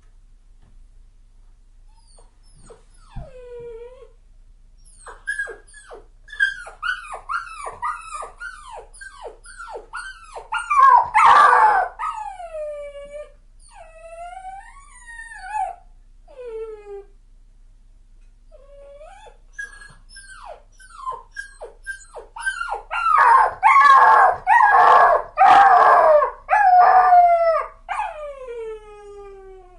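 A dog whining and crying: rapid runs of high-pitched whimpers that each fall in pitch, in two long bouts, loudest in the middle of each. The second bout ends in a long falling whine.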